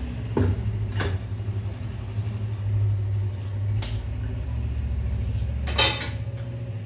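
A wet hand beating thick maida bonda batter in a bowl, with a few short wet slaps, the loudest near the end, over a steady low hum.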